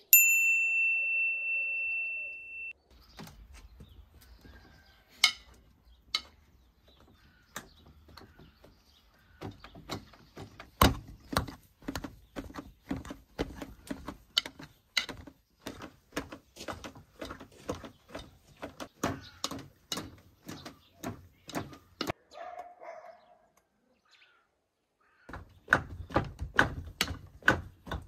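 A wire potato masher pounding boiled potatoes in a metal pot: regular dull knocks about two a second, with a short pause and more knocking near the end. A single bright ringing tone opens and fades away over about three seconds.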